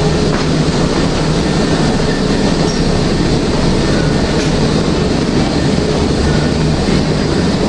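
Steady hum and rumble of an electric multiple-unit train standing at a station platform, with no pauses or distinct events.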